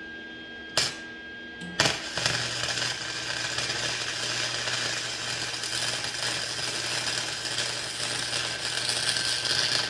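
Electric arc welding on sheet steel: two brief strikes of the arc, then a continuous crackling weld bead from about two seconds in, over a steady low hum.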